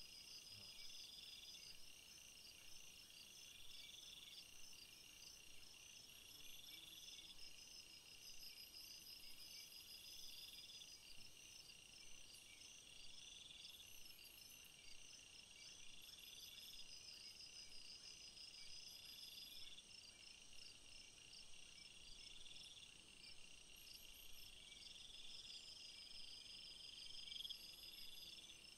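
Faint chorus of chirping insects: several high-pitched trills overlapping, one of them rising and repeating about every two seconds, over a steady high whine.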